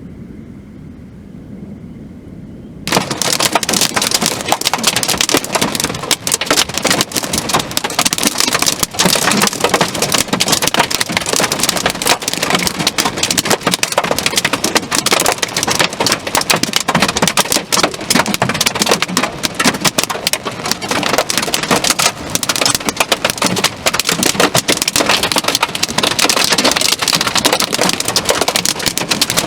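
Heavy rain pelting down in a dense, loud clatter of drops that cuts in suddenly about three seconds in, after a quieter low hum.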